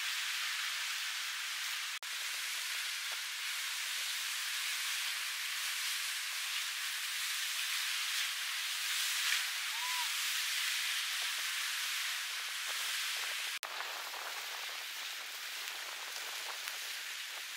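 Steady hiss of rain falling, with almost no low rumble. It drops out for an instant about two seconds in and again near the end.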